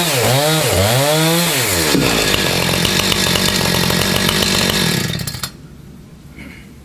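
Gas chainsaw engine running at high revs, its pitch dipping sharply and recovering twice. It then runs lower and rougher for a few seconds and cuts off about five and a half seconds in.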